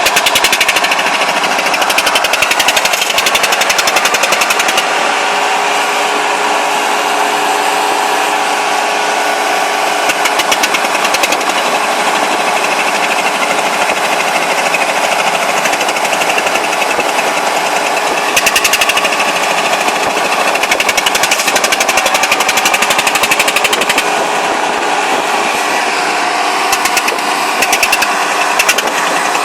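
Rice combine harvester's diesel engine running hard with a fast, even clatter, labouring to pull the machine out of deep mud.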